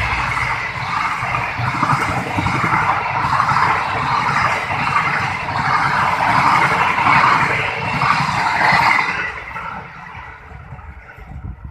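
Argo Bromo Anggrek express train's passenger coaches rushing past at speed: a loud rush of wheels on rail, swelling about once a second as each bogie goes by. It fades away about nine to ten seconds in as the last coach passes.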